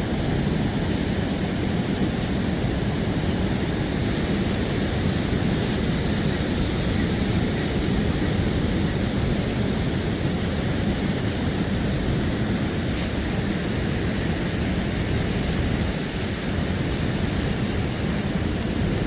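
Steady rushing coastal noise of ocean surf and wind, even and unbroken, with no distinct events.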